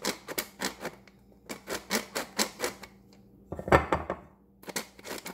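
An old hand-operated flour sifter working powdered sugar through its screen, clicking quickly, several times a second, in short spurts. There is a louder knock about three and a half seconds in.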